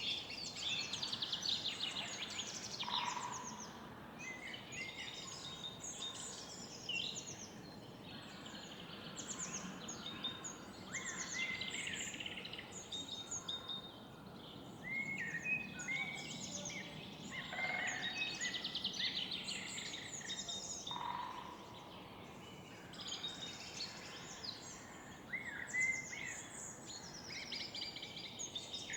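Several songbirds singing together in the morning, with many overlapping chirps and quick trills coming and going, over a faint low hum of the surrounding city.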